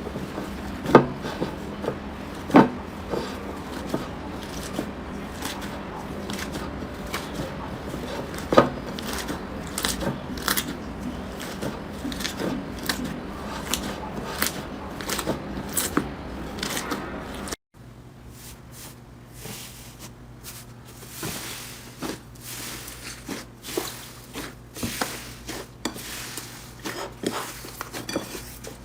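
Slime being squeezed and worked by hand: an irregular run of sticky pops and crackles, with a few sharp louder pops in the first part. After a cut about two-thirds of the way in, softer pops over a low steady hum.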